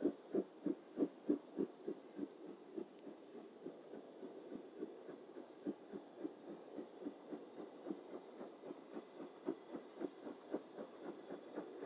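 Exhaust beats of a BR Standard 9F 2-10-0 two-cylinder steam locomotive working uphill with a goods train: an even chuffing of about three to four beats a second, strongest in the first couple of seconds.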